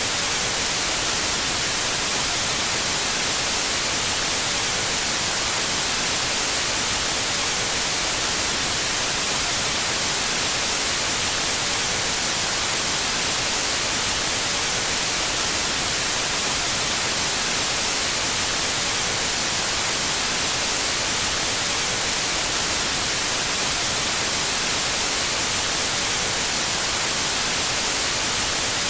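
Loud, steady static hiss that does not change, even across the whole sound and strongest in the high range.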